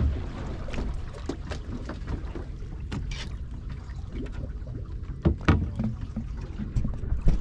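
Small-boat ambience: a steady low rumble of wind on the microphone with water around the hull, broken by scattered clicks and a few sharp knocks, the loudest about five seconds in and again near the end.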